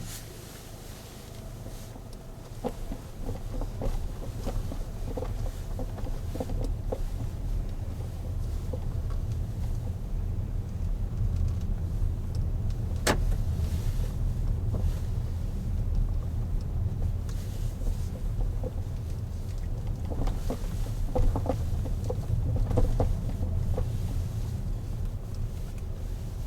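Car driving, a steady low rumble with light rattles throughout and one sharp click about halfway through.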